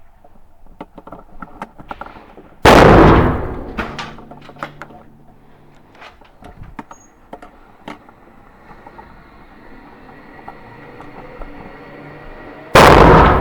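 Two rifle shots about ten seconds apart, each a sharp crack with a long echoing tail, with light clicks and knocks in between.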